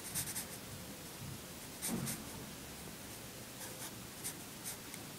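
Pencil sketching on paper: faint, short scratching strokes that come in brief groups.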